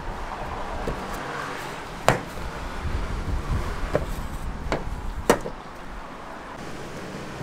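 Hands working and pressing filled dough on a floured steel worktable, with an upturned bowl pressed onto it. Two sharp knocks about three seconds apart, with a few lighter clicks between them, over a steady background hum.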